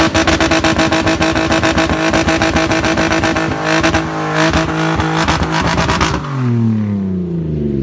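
BMW E46 drift car's engine held at high revs with a rapid stutter for about six seconds, then the revs drop away near the end.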